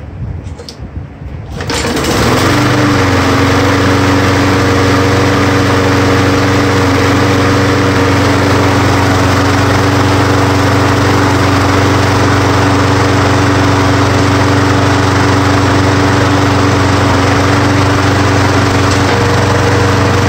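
Briggs & Stratton 6.75 hp single-cylinder four-stroke lawn mower engine starting about one and a half seconds in, then running steadily at speed. It runs on its new ignition coil, which is giving spark.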